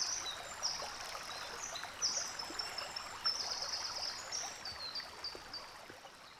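Running water of a stream with birds singing quick, high trilled phrases over it, fading out toward the end.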